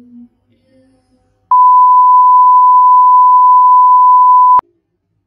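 A censor bleep: one loud, steady, high beep about three seconds long, starting about a second and a half in and cutting off sharply, dubbed over a swear word.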